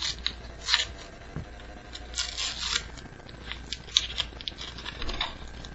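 Paper packaging rustling and tearing and trading cards being handled as a homemade booster pack is opened, in several short scraping bursts.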